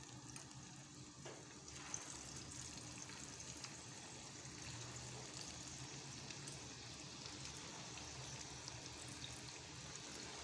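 Vegetable pakoras (gram-flour batter fritters) frying in hot oil: a faint, steady crackling sizzle that grows a little louder from about two seconds in as more batter goes into the oil.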